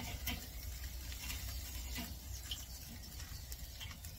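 Mackerel grilling in wire fish baskets over glowing charcoal in an open kettle grill: light, irregular crackling and ticking, with a steady low rumble underneath.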